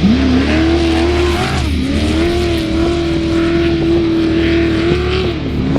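Off-road race vehicle's engine revving up sharply, then held at high, steady revs. It eases off briefly twice, about two seconds in and near the end.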